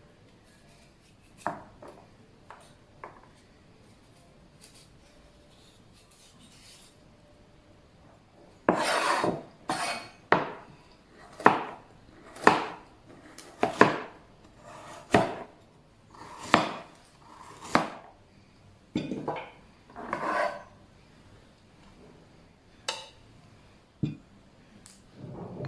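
Kitchen utensils knocking and scraping against pots and a wooden board while cooking: a few faint clicks, then a run of sharp knocks about once a second through the middle, thinning out to a few scattered knocks near the end.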